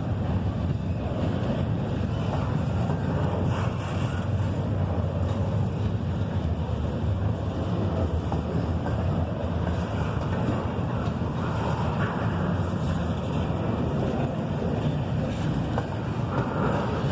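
Freight train rolling past, a steady low rumble, with wind buffeting the microphone.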